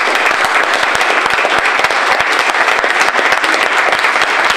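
Audience applauding, a dense, even clapping of many hands.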